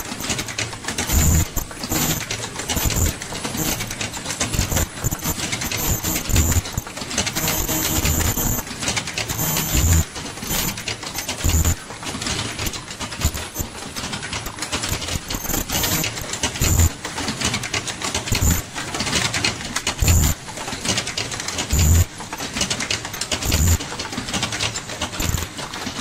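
Automatic disposable face-mask making machine running: a continuous fast mechanical clatter, with recurring low thumps and short high-pitched tones that come and go.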